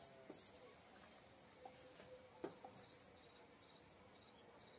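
Near silence: quiet room tone with a few faint clicks and faint, high-pitched chirping trills that repeat in the second half.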